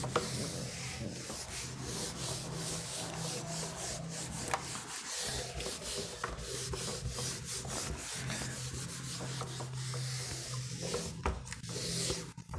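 Handwriting: continuous scratchy strokes of a pen on a writing surface, with small sharp ticks, over a steady low electrical hum.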